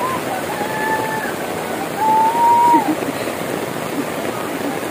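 Steady rush of floodwater. Twice, a person's voice calls out in a long drawn-out note, once just after the start and again about two seconds in.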